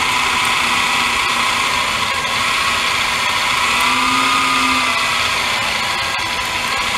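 Electric drill running under load, its bit boring up through a vehicle's body as a floor jack slowly presses it upward. A steady whirring with a faint high tone that sags and recovers a little partway through.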